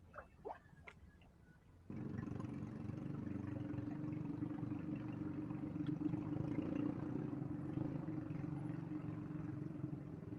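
An engine running steadily with a low, even hum, cutting in abruptly about two seconds in after a few faint clicks and chirps.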